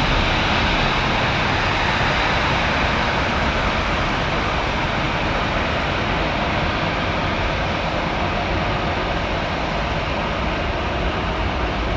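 Airbus A330-243's Rolls-Royce Trent 700 jet engines running at taxi power as the airliner turns onto the runway: a steady jet rush that fades slightly as it moves away.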